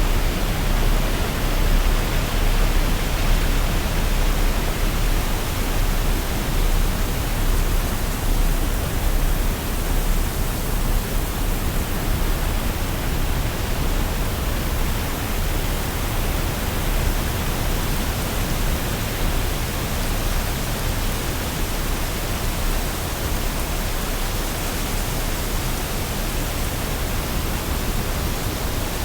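Waterfall: a steady, full rush of falling water, even throughout with no separate splashes or changes.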